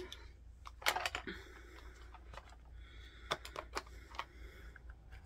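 Light clicks and taps of glass nail polish bottles being handled in their box, a few scattered clicks about a second in and again around three to four seconds in, over a faint low hum.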